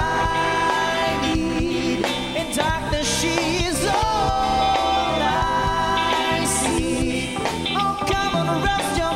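Live pop-rock band playing: a singer holding long, wavering notes over electric guitar, bass guitar and a steady drum beat.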